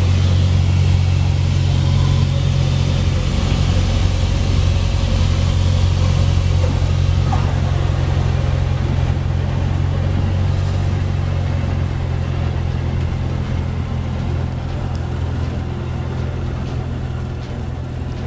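Cabin noise of a Cessna light aircraft: the piston engine and propeller give a steady low drone, mixed with rushing air, during the landing. The rushing air thins out about halfway through as the plane touches down, and the whole sound slowly gets quieter as it rolls out.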